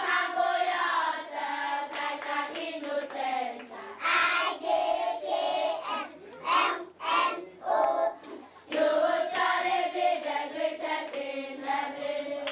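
A group of schoolchildren singing together in unison, with long held notes at the start and end and short separate phrases in the middle.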